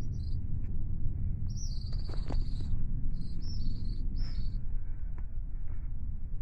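A bird calling in short high chirps, in a few bursts over the first four and a half seconds, over a steady low rumble.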